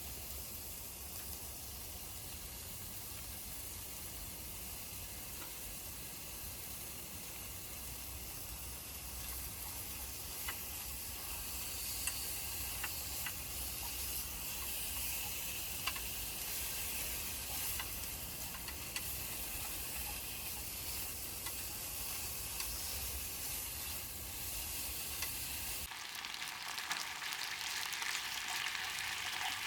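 Food sizzling as it fries in a pan: a steady hiss with scattered small pops. Near the end the sound changes suddenly, becoming brighter and losing its low rumble.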